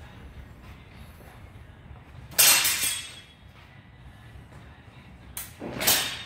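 Steel sword blades clashing during sparring: one sharp ringing clash about two and a half seconds in, and a second, longer clash near the end.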